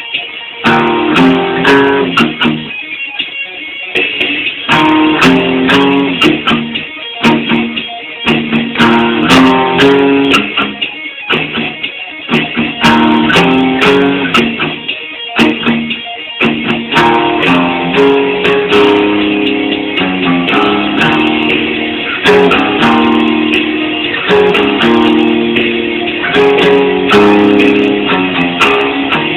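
Guitar playing a heavy metal rhythm riff: repeated chord figures broken by short stops, most of them in the first half.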